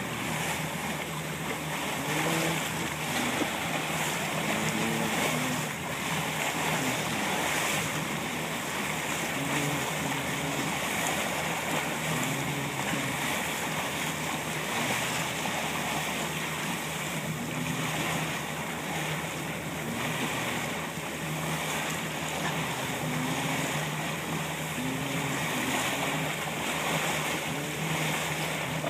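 A boat under way: water rushing and splashing along the hull at the bow over a steady engine hum, with wind on the microphone.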